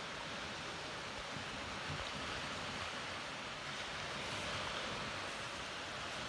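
Steady wash of small waves breaking on a sandy beach.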